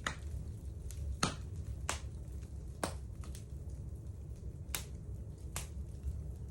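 Wood fire crackling in a fireplace: sharp, irregular pops about once a second over a low steady rumble.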